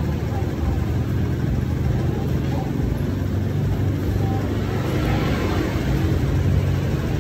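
Steady low rumble of road traffic, with a vehicle engine running close by.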